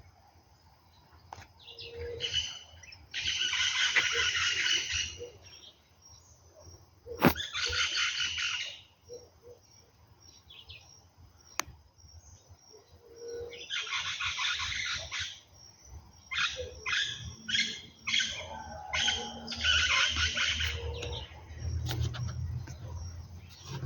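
Songbirds singing in dense chirping phrases of about two seconds each, with pauses between and a run of short, quick notes about two-thirds of the way through. There is one sharp click about seven seconds in.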